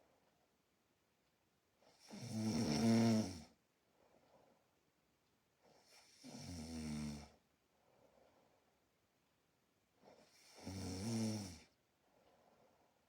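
A person snoring in their sleep: three loud snores about four seconds apart, each lasting about a second and a half, with soft breaths out between them.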